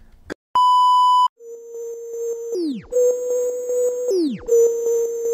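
A single electronic beep lasting about three quarters of a second, then a steady synthesized tone with quick regular ticks, broken three times by a falling pitch drop: the electronic sound effects of a subscribe-button outro animation.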